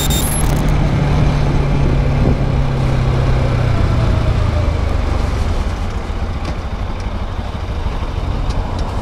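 Bajaj Rouser 200NS single-cylinder engine running as the motorcycle rides along, its steady hum fading about two and a half seconds in, under continuous wind rush on the helmet camera. A short electronic glitch effect sounds at the very start.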